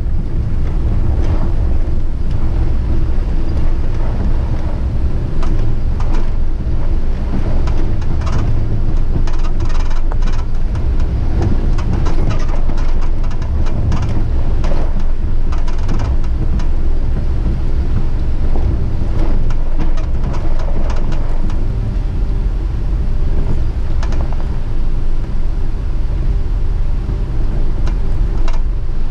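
Steady low rumble of a vehicle in motion, with scattered short knocks and rattles throughout.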